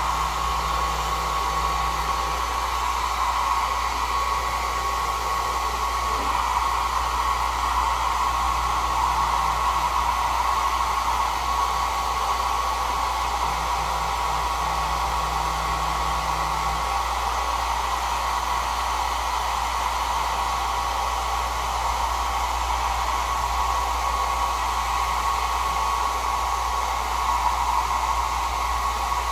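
Handheld 1200 W travel hair dryer running steadily, a rushing of air with a constant high whine, its nozzle held against a computer mouse.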